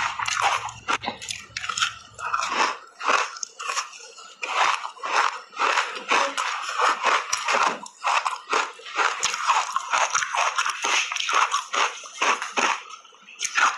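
Close-miked crunching and chewing of a block of refrozen ice coated in matcha powder, taken in big bites: a quick, irregular run of crackling crunches that keeps going.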